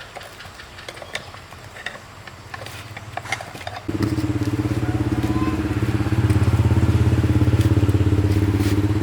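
Light clicks and taps, then about four seconds in a small engine starts abruptly and runs with a steady low, rapid pulsing beat, growing louder a couple of seconds later.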